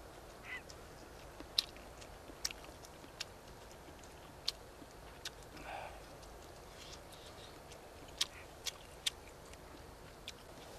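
Faint eating sounds from a person tasting fish cake soup: scattered sharp clicks and small mouth sounds, with a short slurp about half a second in and another near the middle.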